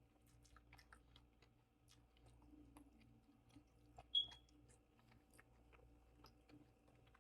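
Faint chewing and wet mouth clicks of someone eating, over a faint steady hum. About four seconds in, a single short bright clink rings out, the loudest sound here.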